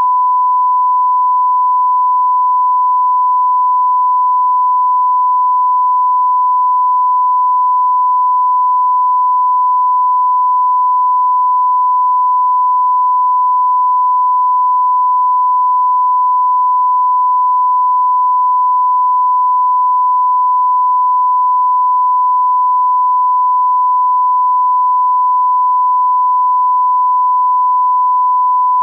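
A continuous electronic beep at one steady pitch, a pure tone held unbroken and at an even loudness.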